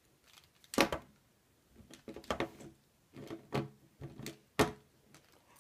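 A die-cast toy monster truck handled and set down on a wooden tabletop: several separate sharp knocks and clicks a second or so apart.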